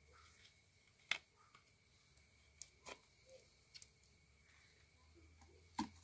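A handful of sharp clicks and knocks from a steel knife against the wooden hive box and a steel bowl while honey pots are cut out of a stingless-bee hive, the loudest about a second in. Otherwise near quiet.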